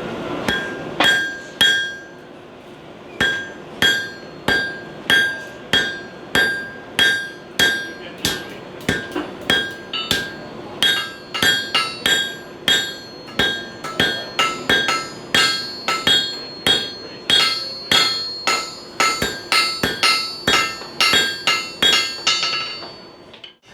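Blacksmith's hammer striking iron on an anvil, about two ringing blows a second. There is a short pause after the first few blows, and the rhythm mixes heavy blows with lighter taps.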